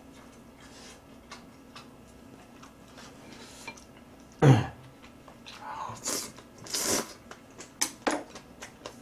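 A person eating: faint chewing and chopsticks clicking on dishes, then a sudden loud throat sound falling in pitch about halfway through, followed by two loud breathy noises and a few sharp clicks near the end.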